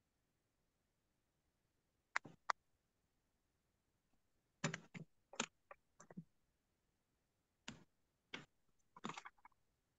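Sparse computer keyboard and mouse clicks picked up through a video-call participant's microphone, in small irregular groups: a pair about two seconds in, a cluster near the middle and a few more near the end, over near silence.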